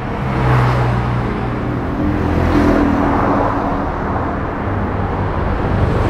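Passing road traffic: a low engine drone with tyre noise that swells as vehicles go by, about twice.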